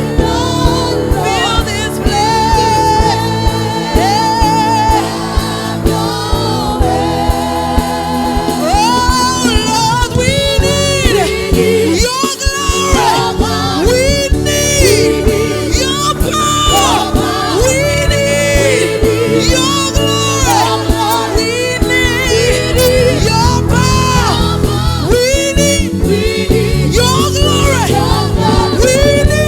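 Live gospel praise music: vocalists singing over a band with a steady beat.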